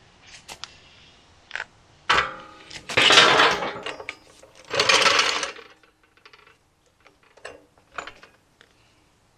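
Metal tool work on steel: scattered clicks and clanks, with two louder, rasping bursts of about a second each around three and five seconds in, then a few faint ticks.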